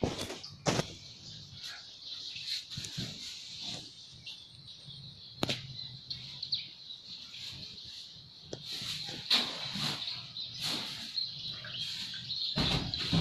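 Floodwater sloshing and splashing in irregular strikes as someone wades through a flooded house, over a steady high-pitched chirring in the background.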